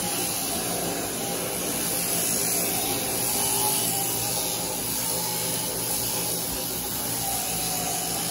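Sheep shearing handpiece running steadily with a continuous whirring buzz as it cuts the fleece off a ram.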